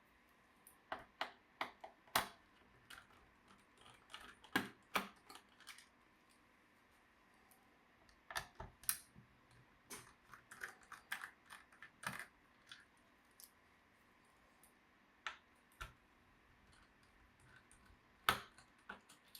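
Irregular small clicks and taps from an MSI Cyborg 15 laptop and the tools working on it as it is taken apart, coming in scattered clusters with a sparser stretch near the end.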